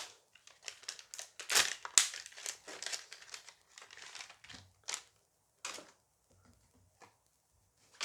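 Foil booster pack crinkling as it is torn open and handled, in a dense run of crackles over the first five seconds, loudest about two seconds in, then one more short crinkle a little later.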